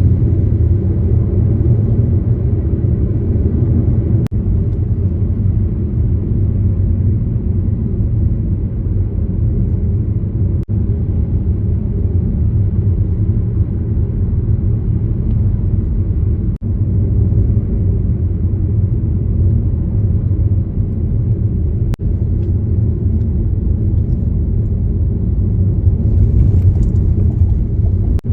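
Car driving at a steady pace: a constant low rumble of road and engine noise, dipping briefly a few times.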